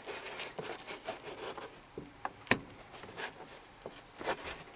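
Car interior trim and headliner being handled: scattered light clicks and knocks with rustling, the sharpest knock about halfway through.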